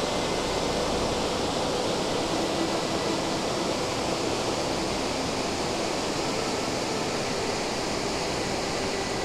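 Whitewater river rapids rushing steadily: a constant loud hiss of fast-flowing water.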